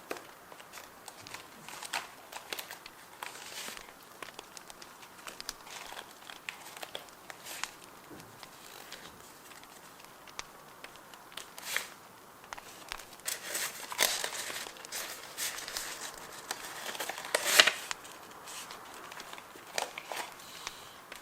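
Paper being handled for journal decorating: rustling and crinkling with scattered light taps. It gets busier in the second half, loudest about seventeen seconds in.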